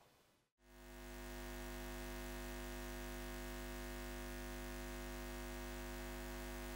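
Steady low electrical hum, the buzz of a neon sign, starting about half a second in and swelling up over about a second before holding level.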